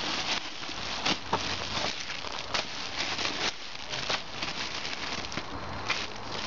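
Clear plastic wrapping crinkling and rustling as a wrapped handbag is handled and pulled out of its film, with irregular sharp crackles throughout.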